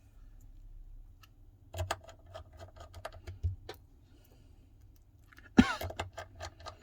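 Light, irregular clicks and taps of a small screwdriver, screws and phone parts being handled and fitted into a smartphone frame during reassembly, with one louder brief sound about five and a half seconds in.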